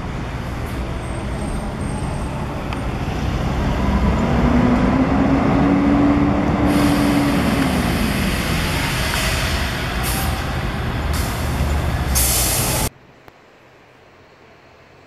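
Diesel engine of a Comil-bodied Mercedes-Benz intercity coach running as it pulls slowly up, growing louder as it nears, with a pitch that rises and then falls about halfway through. Air brakes hiss in several short bursts over the later seconds, then the sound cuts off suddenly to a quiet background.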